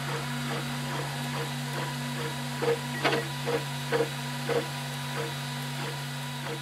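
FlashForge Dreamer 3D printer printing. Its stepper motors whine in short tones that stop and start several times a second as the extruder head moves, over a steady low hum and light clicks.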